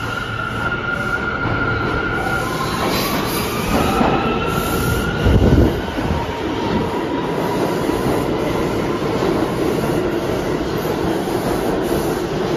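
A New York City subway train pulls into the station: high-pitched squealing with tones that shift in pitch, a loud low thump about five and a half seconds in, then the steady rumble and rattle of the cars rolling past.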